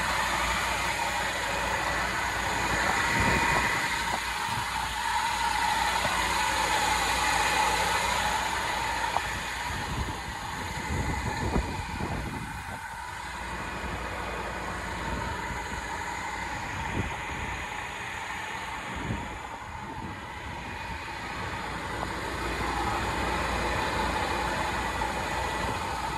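Steady vehicle noise: a low rumble with a constant hum, and a few light knocks about the middle.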